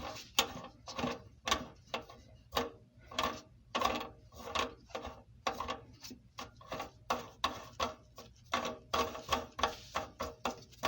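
A wrench clicking and knocking in an irregular run of sharp metallic clicks, about two to three a second, as the mounting nut holding a kitchen faucet to the sink is loosened.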